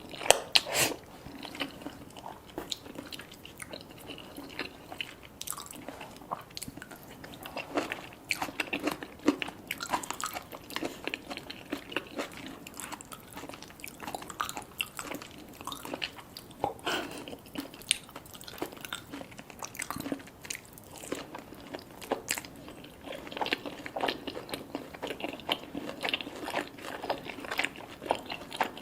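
Close-miked eating: crisp biting and crunching with steady chewing, many small irregular crackles and clicks throughout.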